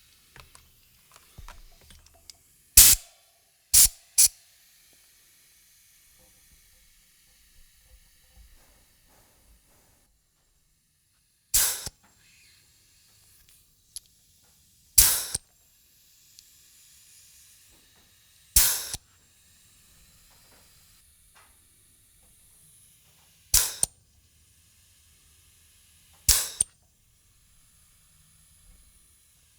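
A series of sharp, loud cracks, eight in all, spaced unevenly a few seconds apart, each dying away quickly, with faint hiss between them.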